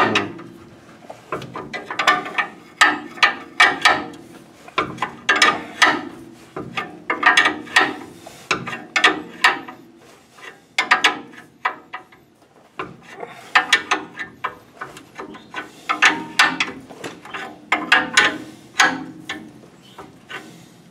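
Hand ratchet clicking in repeated runs of back-and-forth strokes, a cluster of clicks about every second, as it winds down a coil spring compressor's threaded rod to compress a front coil spring.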